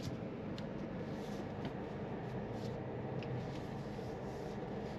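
Low, steady cabin hum of a SsangYong Torres's 1.5-litre turbo petrol engine and tyres as the SUV rolls slowly, with a few faint light ticks.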